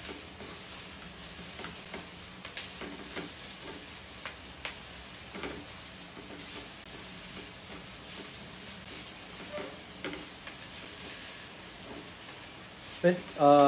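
Diced onion and minced garlic sizzling steadily in a little oil in a wok, being stir-fried until fragrant, while a spatula stirs and scrapes with a few light knocks against the pan.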